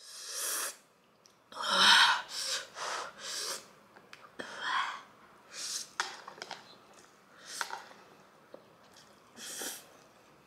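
Spicy ghost pepper noodles being slurped in a series of short, hissy bursts with sharp breaths between, the loudest about two seconds in, and a few light clicks in between.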